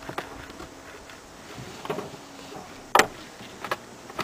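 Clicks and knocks from a plastic convertible car seat being handled and set into its most reclined position, with one loud knock about three seconds in.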